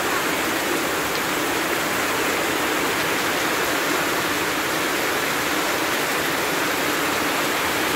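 Heavy rain falling steadily, a continuous even hiss, with water pouring off the roof eaves onto the muddy ground.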